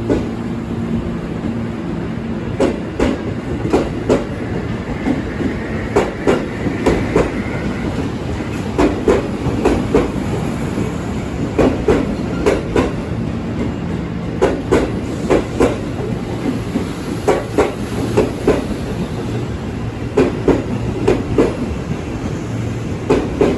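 A train rolling through a station, its wheels clacking in repeated groups over rail joints above a steady rumble.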